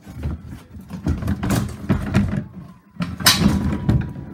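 Scraping, rustling and knocking of the plastic packaging around a new crate engine being handled, with a louder hissing scrape a little after three seconds in.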